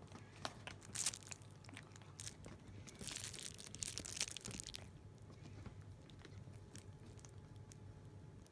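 Cats chewing a stick treat, with a few sharp clicks in the first couple of seconds, then plastic treat packets crinkling for about two seconds as a cat noses through them, and faint rustles after.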